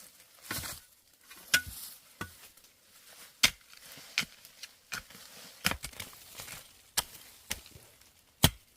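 A series of sharp knocks, about one a second and irregularly spaced, with softer scraping between them; the loudest comes near the end.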